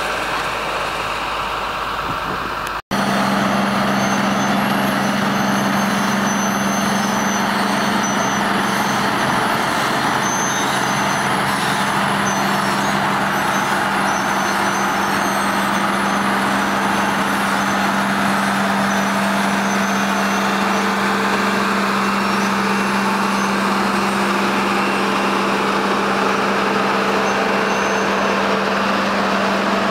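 Heavy construction machinery with its diesel engine running steadily, a constant low hum over mechanical noise. The sound cuts out for an instant about three seconds in, then the steady running resumes.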